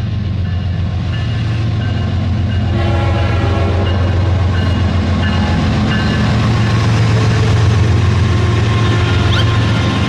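Train sound effects: a steady low locomotive rumble, with a sustained horn-like tone joining about three seconds in and a few short rising chirps near the end.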